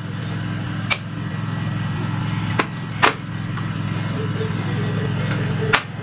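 Bottles and a glass bowl being set down on a glass tabletop: four sharp knocks, about one, two and a half, three and nearly six seconds in, over a steady low hum.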